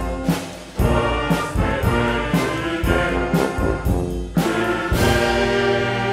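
A brass band with drums plays a football club anthem to a steady beat of about two strokes a second, then settles onto a long held chord about five seconds in.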